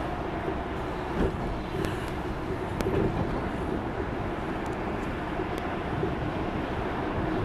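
Steady engine and road rumble heard from inside a moving vehicle, with a few faint ticks or rattles.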